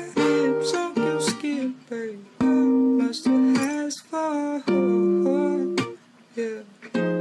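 Background music: a plucked-string tune of notes and chords, with a short pause about six seconds in.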